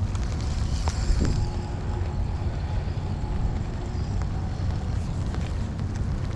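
Wind buffeting the microphone in heavy rain, a steady low rumble with a haze of rain noise and a few faint ticks.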